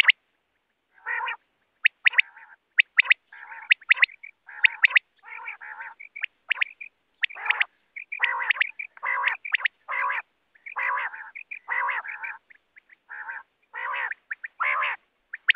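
Common quail calling: a run of rasping, croak-like calls about one or two a second, mixed with short, sharp high-pitched notes.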